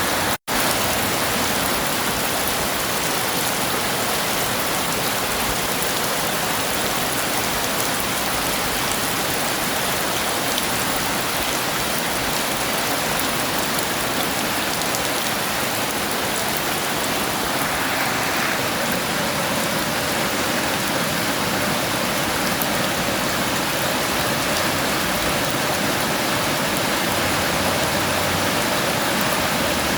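Heavy rain falling steadily in an even hiss, with a momentary cut-out of the sound about half a second in.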